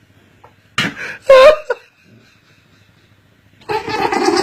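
A dog sneezing: a short burst about a second in, followed at once by a louder sneeze with a brief rising-and-falling pitched note in it. Near the end a long, drawn-out vocal sound begins.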